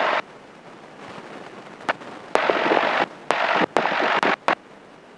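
Aircraft headset intercom or radio hiss bursts that switch on and off abruptly with clicks: a short one at the start, then two longer ones of about a second each past the middle, over a low steady background.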